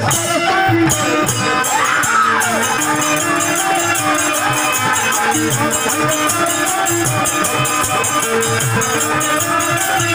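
Live Bhojpuri dugola stage music playing for a dancer: a melody with gliding notes over low drum beats, and a fast, even rattling jingle beat that comes in about a second in.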